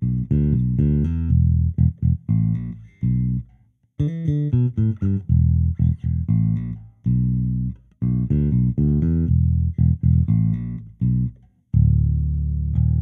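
Sampled electric bass virtual instrument playing a repeating line of short plucked notes in phrases about four seconds long, ending on a long held note.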